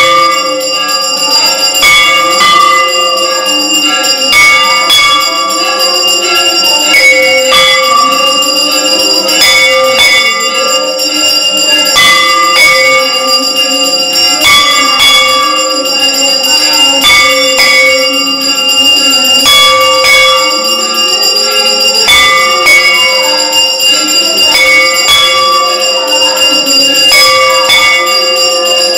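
Temple bells ringing without a break during aarti, struck again and again so that the ringing never dies away, with several bells of different pitch sounding in turn.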